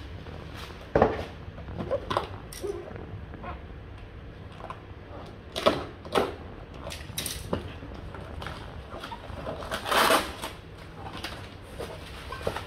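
Cardboard box being unpacked: scattered clicks, knocks and rustles as the flaps and packing tape are handled, with scissors cutting through the tape around the middle. Near the end comes a longer rustle of a plastic bag crinkling.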